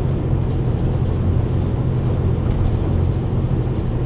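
Steady low rumble of engine and tyre noise inside a moving vehicle's cabin.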